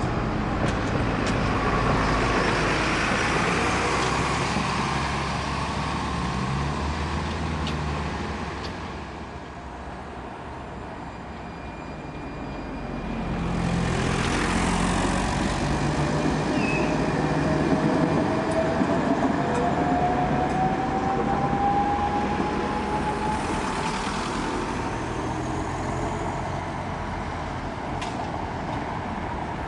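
Street traffic with a tram passing close by about halfway through, followed by a long whine that rises slowly in pitch. A diesel bus drives past near the end.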